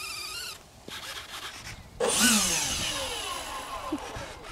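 A high-pitched small electric motor whine with several tones starts suddenly about two seconds in and falls steadily in pitch. Before it, an earlier wavering whine dies away about half a second in.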